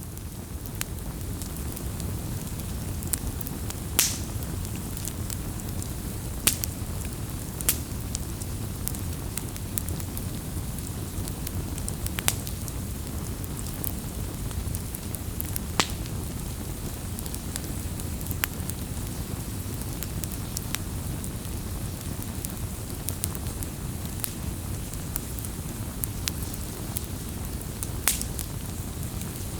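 Wood campfire burning: a steady low rumble of flames with sharp crackles and pops every few seconds.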